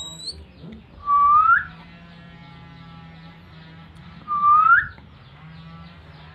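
Whistled calls for oriental magpie-robins (kacer), each note about half a second long and sliding upward. A high note comes right at the start, then two louder, lower notes about a second in and at about four and a half seconds, with softer notes in between.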